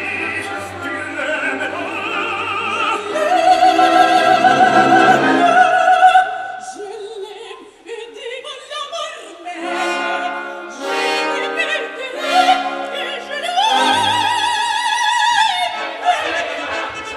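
Operatic singing with orchestra. A voice with strong vibrato holds long notes, dips briefly about halfway through, then rises to another held note near the end.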